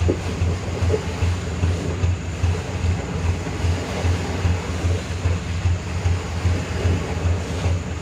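Hino light truck's diesel engine labouring at low speed while the loaded truck crawls through deep mud. It has a low, regular throb of about three pulses a second.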